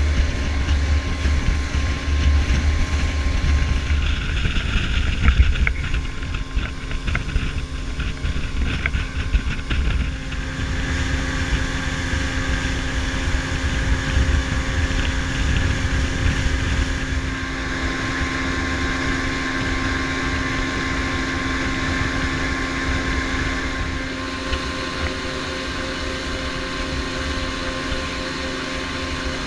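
Evinrude outboard motor running steadily as the boat travels at speed, with the wake rushing behind. Wind buffets the microphone with a heavy rumble, strongest in the first ten seconds or so.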